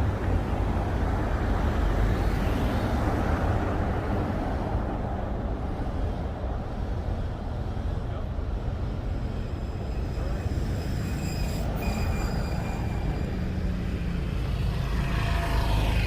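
Steady city street traffic noise, a continuous low rumble of passing vehicles, with a faint high tone briefly about two-thirds of the way through.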